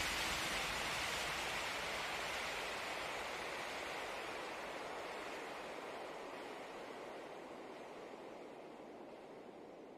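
A steady rushing noise with no tune, fading slowly and evenly toward near silence.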